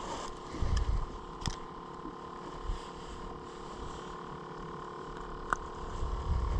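Faint steady hum on a fishing boat, with wind buffeting the microphone about half a second in and again near the end, and a couple of light clicks.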